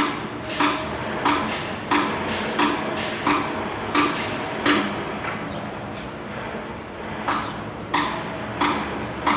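Hammer striking metal in a steady rhythm, about one blow every two-thirds of a second, each with a short metallic ring. The blows pause for about two seconds around the middle, then resume.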